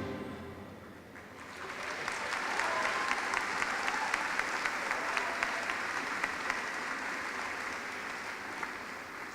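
Large audience applauding, many hands clapping. It swells in after the music fades in the first second, then slowly dies down.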